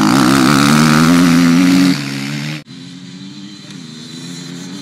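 Dirt bike engines: one passes close by, loud and revving with a wavering pitch for about two seconds, then drops away. After a sudden break about halfway through, bikes run steadily and more quietly further off.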